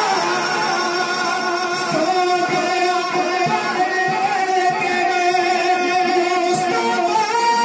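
A man singing a naat into a microphone, holding long wavering notes that slide slowly from one pitch to the next.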